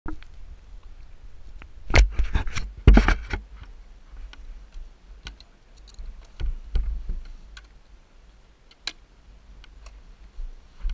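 Scattered clicks and knocks of a helmet-mounted action camera being jostled as the rider climbs onto a dirt bike, with the two loudest knocks about two and three seconds in; the bike's engine is not yet running.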